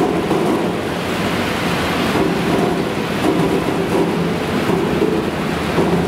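Continuous potato washing machine running: a steady rush of water and tumbling potatoes, with a low machine hum that wavers in strength as the stainless-steel spiral auger turns.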